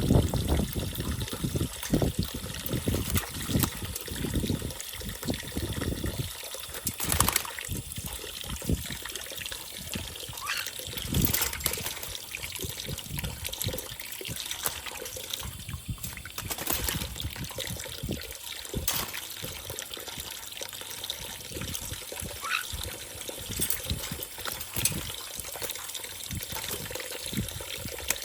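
Water trickling and splashing as a pet caique bathes, with irregular splashes throughout.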